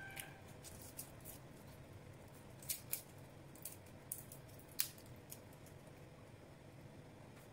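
Dry, papery garlic skin crackling and snapping as cloves are peeled by hand: scattered small crisp clicks, the sharpest about three and five seconds in, dying away after about five seconds.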